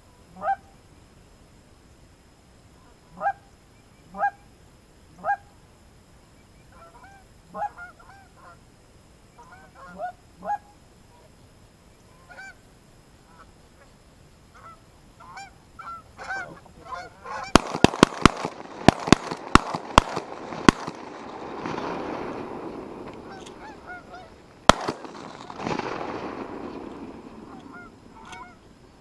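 Geese honking as the flock comes in, single calls at first and then more of them together. About two-thirds of the way in, a rapid volley of about a dozen shotgun shots in three seconds, with a dense wash of goose calls and noise after it, and one more shot a few seconds later.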